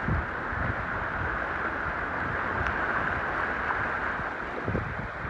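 A vehicle driving through a flooded street, a steady rush of water spray and splashing from its tyres, with wind buffeting the microphone in low, irregular thumps.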